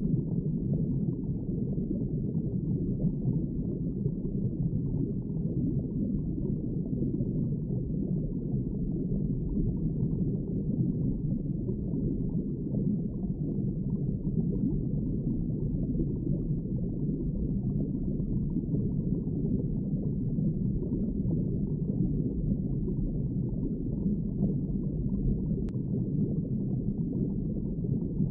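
Underwater ambience: a steady, muffled low rush of sea water with nothing bright or high in it.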